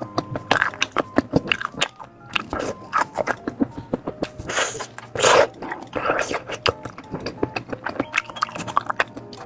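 Close-up eating sounds: biting into and chewing sausages, with many short sharp snaps and clicks and louder bites about halfway through, over background music.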